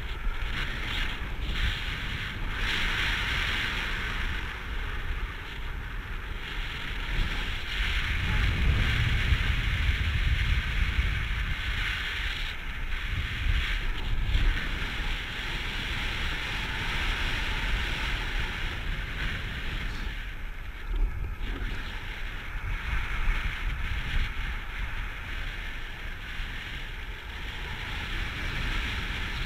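Airflow buffeting the camera microphone of a paraglider in flight: a steady rushing wind noise with gusty low rumbles that swell and fade.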